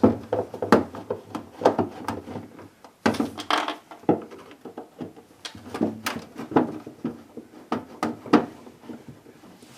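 Irregular clicks, taps and knocks of a Phillips screwdriver and hard plastic parts being handled inside a refrigerator freezer, as the screws come out of the evaporator fan cover and the cover is worked loose.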